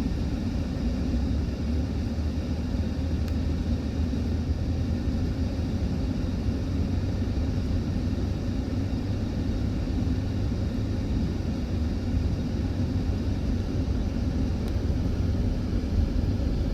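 Camper van driving: steady low engine and road rumble.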